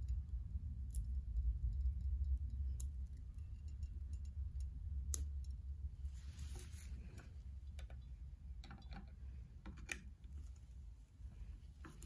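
Scattered small metal clicks and ticks of circlip pliers and a steel circlip being worked into the groove of a suspension fork stanchion, over a steady low hum.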